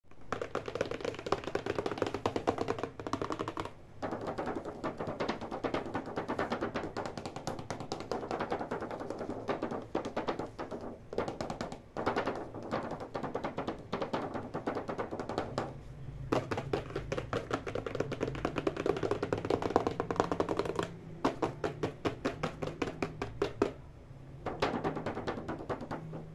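Fingernails tapping and scratching rapidly on the plastic window of a doll toy box, in quick runs of many clicks broken by short pauses.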